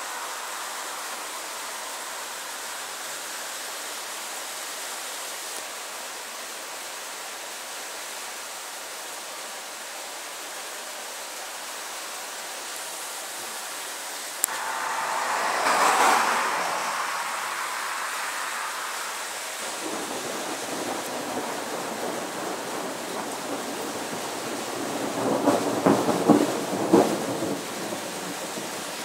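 Thunderstorm: a steady hiss, then about halfway through a sudden clap of thunder that swells into a rumble and dies away over several seconds. A second, rougher rumble comes near the end.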